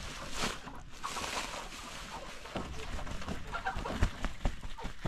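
Domestic chickens clucking, with scattered soft knocks and rustles.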